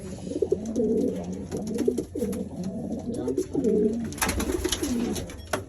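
Several domestic pigeons cooing together in a loft, overlapping low calls, with a burst of clattering, likely wings or feet, about four seconds in.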